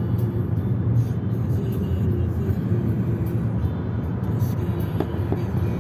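Steady low road rumble inside a moving car's cabin, with music playing over it.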